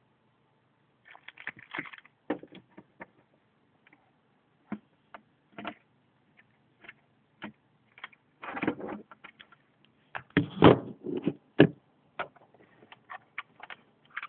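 Hand clamp being handled and fitted onto the plastic frame of a Sony LCD monitor to pinch it: irregular clicks and knocks, bunched into busier clatters about a second in, around eight seconds and around ten seconds.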